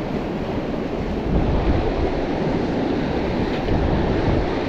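Steady wash of surf at a rock jetty, mixed with wind noise on the microphone.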